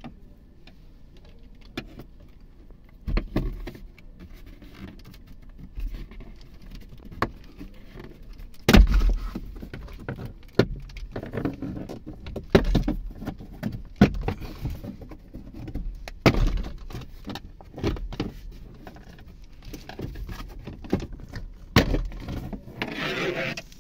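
Plastic dashboard trim on a 2022 Hyundai Elantra being pried and pulled loose with a screwdriver and by hand: irregular clicks, knocks and rattles of the plastic panels and their clips, the loudest knock about nine seconds in.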